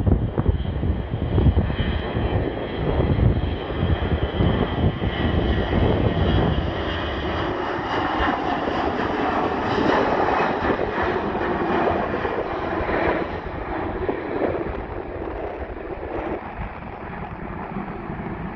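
Airbus A321-211's twin CFM56 turbofan engines at takeoff thrust, a jet roar with a high fan whine, loudest around liftoff about halfway through and then fading as the airliner climbs away. Strong wind buffets the microphone in the first several seconds.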